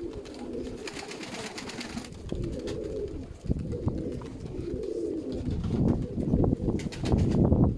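Domestic pigeons of the sickle (serpasty) breed cooing over and over, with a louder low rumble in the last couple of seconds.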